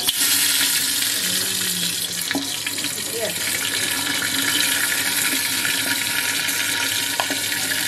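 Marinated mutton sizzling steadily as it is scraped from a glass bowl into a hot clay handi with a wooden spatula, with a couple of short knocks of the spatula.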